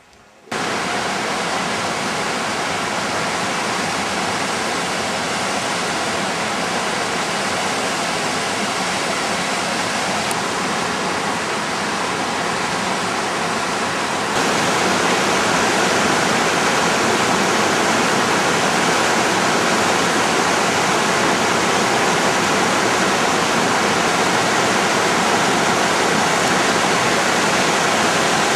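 Steady rushing of a small waterfall pouring over a rock ledge into a shallow, rocky stream. It comes in just after the start and gets louder about halfway through.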